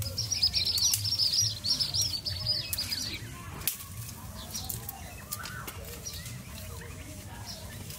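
A small bird sings a fast run of high, chirping notes for about the first three seconds. Scattered dry snaps and crackles of brittle sticks and brush being pulled and broken run underneath, with one sharp snap shortly after the song stops.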